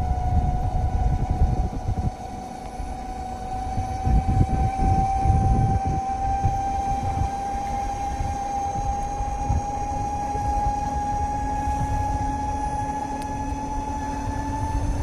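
A motor vehicle running at steady speed, its engine whine holding one tone that rises slowly in pitch, over an uneven low rumble.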